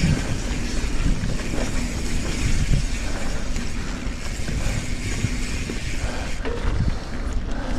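Mountain bike riding over a dirt trail: wind rushing over the action camera's microphone, tyres rolling, and the bike rattling and knocking over bumps.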